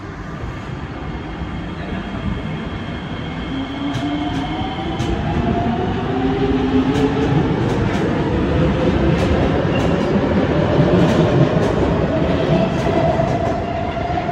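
SMRT C151A electric metro train accelerating away from the platform, its traction motors whining in a steadily rising pitch as it gathers speed. The rumble grows louder as the cars roll past close by, with scattered clicks from the wheels on the track.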